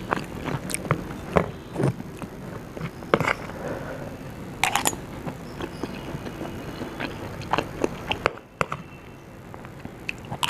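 A person eating sabudana khichdi, sabudana vada and chillies close to the microphone: chewing and biting, with irregular sharp clicks and crunches.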